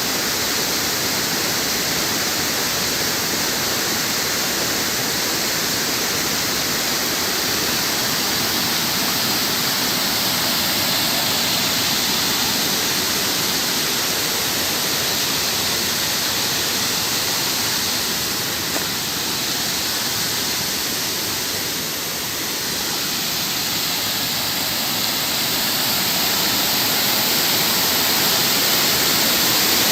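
Water of a waterfall rushing over rock in a steady, even wash of noise, dipping slightly about two-thirds of the way through and swelling a little near the end.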